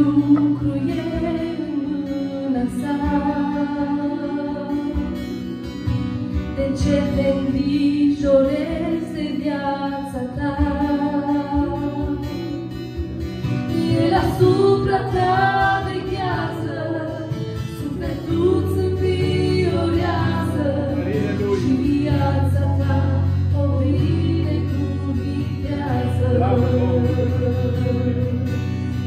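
Two women singing a Christian song together, accompanied by a strummed acoustic guitar. Deep sustained bass notes come in about two-thirds of the way through.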